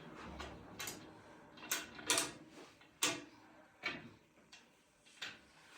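About seven light clicks and knocks, roughly one a second, two of them followed by a brief rustle: handling noise from a patient shifting on a chiropractic treatment table.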